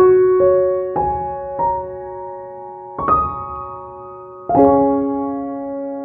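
Background piano music: slow, gentle single notes struck a second or so apart, then a chord struck about four and a half seconds in that rings on and fades.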